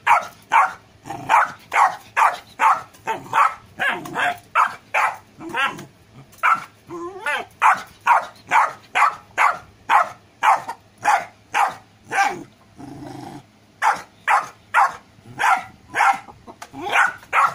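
Golden retriever puppy barking over and over, about two barks a second, with two brief pauses.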